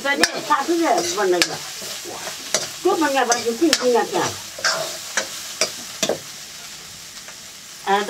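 A metal ladle stirs and scrapes frying potato curry in an iron wok, with sharp clicks of the ladle against the pan and squealing scrapes over a steady sizzle. The stirring stops about six seconds in, leaving a quieter sizzle.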